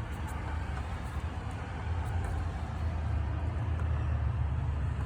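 8 kW standby generator's engine running steadily with a low rumble, getting somewhat louder about two seconds in.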